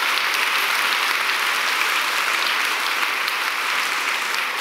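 Audience applauding, a steady dense clapping that eases off slightly near the end.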